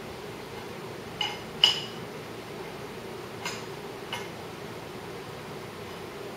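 Four light metallic clinks of small parts and tools being handled at a motorcycle engine's cam chest, the second one the loudest, over a steady low hum.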